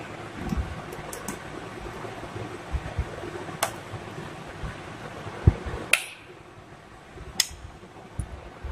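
A few sharp clicks of plastic electrical switches being flipped, with soft knocks as the wire ends are handled at an extension board, over a faint steady room hum.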